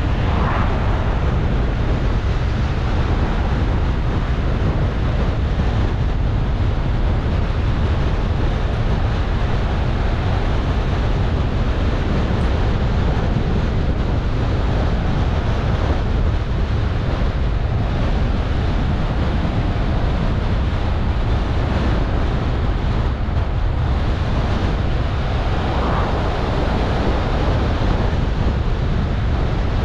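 Steady road and wind noise of a car on the move: a constant low rumble under a rushing hiss.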